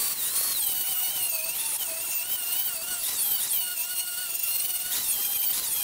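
Electric angle grinder with a flap disc grinding the corner of a steel angle iron, rounding its heel so it fits the inner corner radius of a steel channel. A steady hissing grind over a motor whine whose pitch wavers up and down as the disc is pressed in and eased off.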